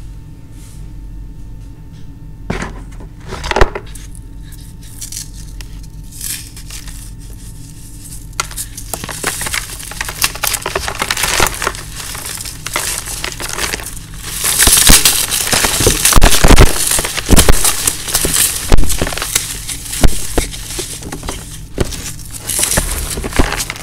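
Dry floral foam blocks with a chalky purple coating being squeezed and crushed by hand, a crisp crunching and crackling. A couple of sharp snaps come first, then dense crunching from about a third of the way in, louder and fuller in the second half.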